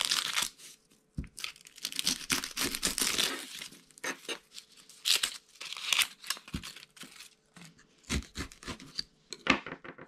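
Dry, papery onion skin crackling and tearing as a yellow onion is trimmed with a paring knife and peeled by hand, in irregular bursts, with a few short knocks on the wooden cutting board.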